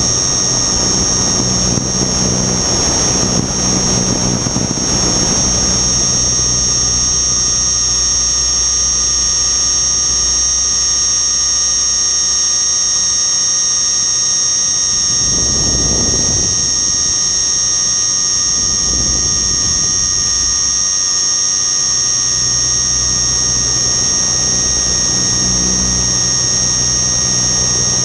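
Radio-controlled helicopter in flight: a steady high-pitched whine over a low droning hum from the rotor. Swells of rushing noise come near the start and again about halfway through.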